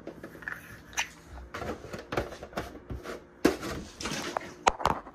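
Irregular knocks, clicks and rustling of objects being handled on a kitchen counter, with a quick cluster of sharper clicks near the end.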